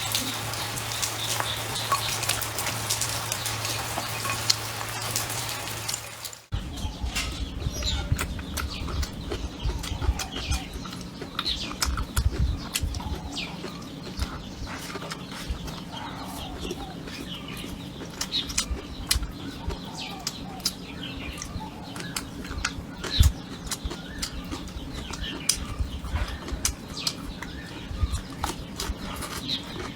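A steady hiss with a low hum, cutting off abruptly about six seconds in. It gives way to chickens scratching and clucking, with scattered clicks and low thumps.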